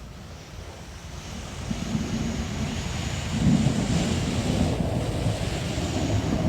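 A vocal mimic imitating wind and thunder with the voice: a rushing, rumbling noise that swells louder from about two seconds in.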